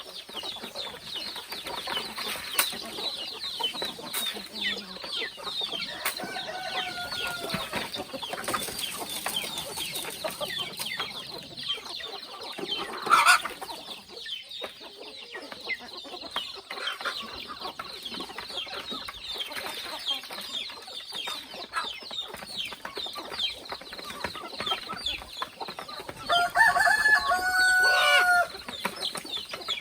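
A flock of free-range chickens clucking and chattering, with a short sharp sound about halfway and a rooster crowing for about two seconds near the end.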